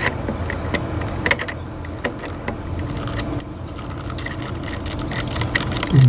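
Light, irregular metallic clicking and clinking of a hand tool on the 10 mm nut of an EGR tube bracket as it is loosened, over a low steady hum.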